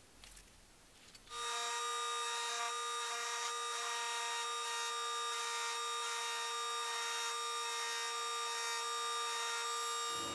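Small handheld rotary tool with a pointed bit running at a steady high-pitched whine. It switches on about a second in and stops near the end, held at a metal lure blade.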